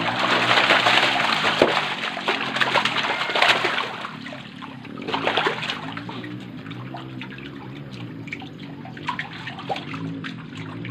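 Water splashing and churning as a mass of catfish thrash in shallow water, heaviest over the first four seconds, with another burst about five seconds in, then lighter scattered splashes and trickling.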